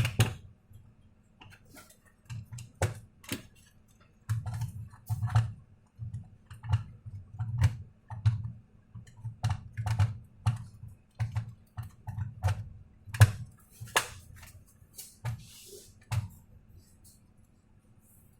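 Irregular clicks and light taps from hands working on a laptop, some with a dull low thud, at about one to two a second.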